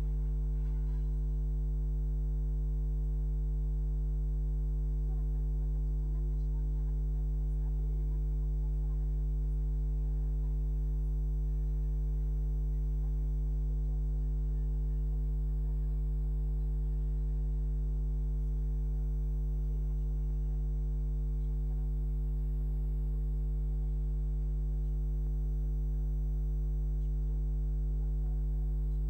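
Steady, low electrical mains hum that does not change.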